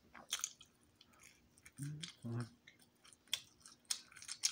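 Close-up chewing of a mouthful of pizza: wet mouth clicks and squishes, with two short low vocal sounds about two seconds in.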